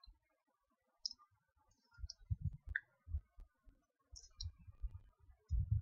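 Computer mouse clicking: a few sharp, light clicks mixed with dull low thumps, busiest from about two seconds in and loudest near the end.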